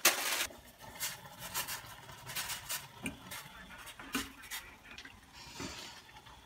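Metal fork stirring noodles in a small stainless-steel saucepan of Hennessy, with irregular light clinks and scrapes against the pan and liquid sloshing. There is a sharper clatter right at the start.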